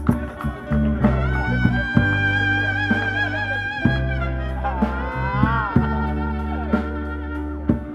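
Guitar-led music over a steady bass, with a long held melody note and a note bent up and down about five seconds in.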